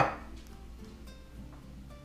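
A single sharp knock of a kitchen cabinet door right at the start, dying away quickly, over background acoustic guitar music.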